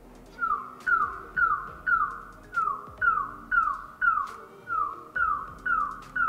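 LG DS95QR soundbar's AI Room Calibration test signal: about a dozen short falling tone chirps, roughly two a second, starting about half a second in. The soundbar plays them to measure the room for automatic sound calibration.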